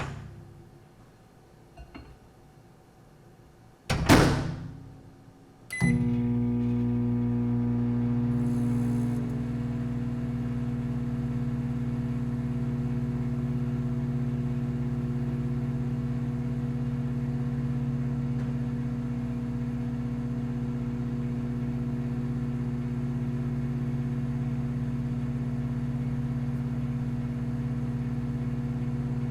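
Microwave oven: a few faint clicks, then the door shut with a sharp bang about four seconds in. A short click and beep follow as it starts, then the steady electrical hum and fan whir of the oven running, which settles slightly lower a few seconds after starting.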